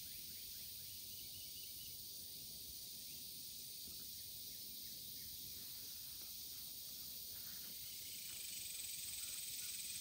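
Steady outdoor insect chorus, a high even hiss that grows slightly louder near the end.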